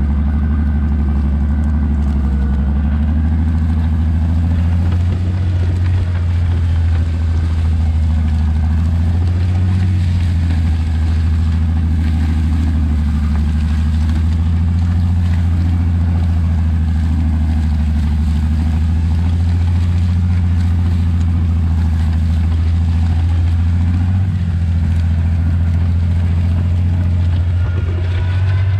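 Farmall 560's six-cylinder engine running steadily under load as it pulls a plow through wheat stubble, heard from the plow behind the tractor.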